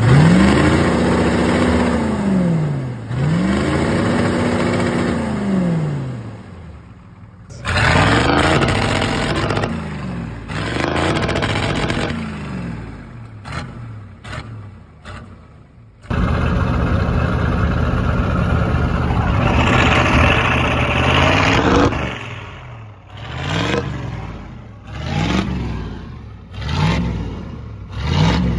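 Ford 7.3 IDI V8 diesel in an F-350 wrecker revving again and again after sitting for over a year. It goes through two long revs up and down, a few shorter ones, a rev held high for several seconds about two-thirds of the way in, then a string of quick blips near the end.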